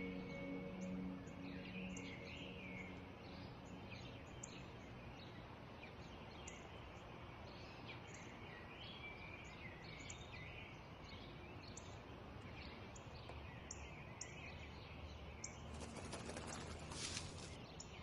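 Garden ambience of small birds chirping, many short scattered calls over a faint steady background. Music tones fade out in the first few seconds, and there is a brief rustle about sixteen seconds in.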